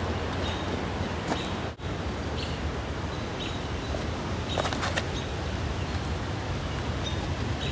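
Outdoor ambience: a steady low rumble with short high chirps, likely birds, repeating about once a second, and a couple of sharp clicks about five seconds in.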